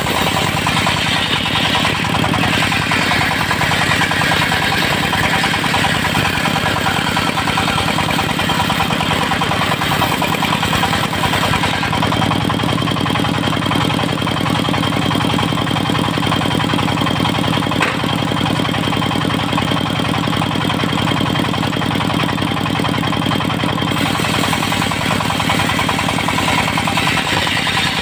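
Dongfeng diesel engine running steadily with a fast, even pulsing beat, driving a portable circular sawmill.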